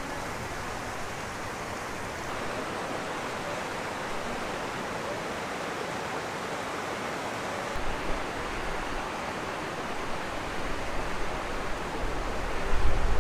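Outdoor ambience: a steady rushing noise, like wind or running water. About halfway through, gusts of wind start buffeting the microphone with a low rumble, strongest near the end.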